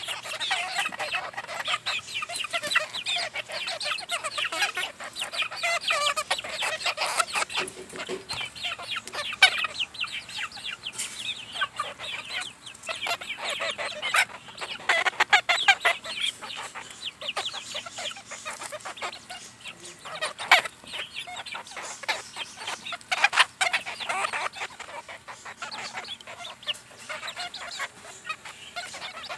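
A flock of hens clucking continuously while they feed, with many short sharp taps from beaks pecking at food on the ground.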